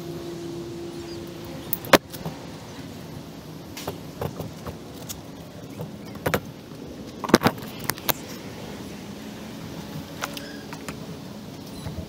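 Military canteen pouch and its metal canteen cup being handled on a table: scattered clicks, knocks and clinks of snaps, buckles and metal, sharpest about two seconds in and again around seven seconds. A steady low hum stops about two seconds in.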